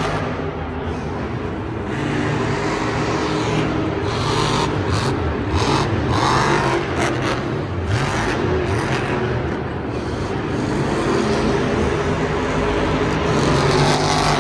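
Monster truck's supercharged V8 engine running loud and revving, with surges of power partway through.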